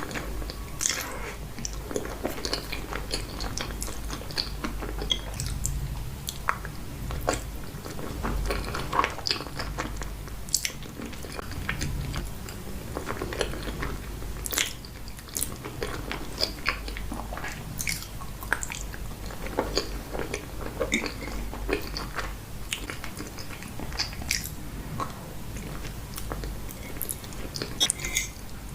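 Close-miked chewing and biting of creamy pasta, with many short, wet mouth clicks at an irregular pace.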